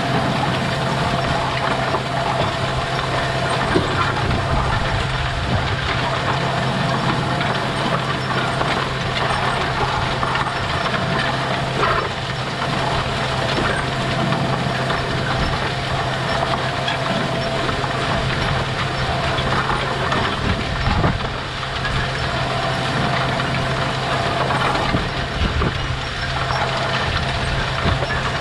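Tractor-drawn John Deere row-crop planter working through strip-tilled corn stalk ground. A steady tractor engine drone runs under light, irregular rattling and knocking from the row units and closing wheels.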